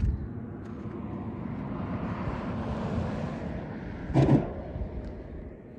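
A vehicle passing on the road, its tyre noise swelling and fading, with a short, loud clatter about four seconds in as it crosses a steel cattle guard.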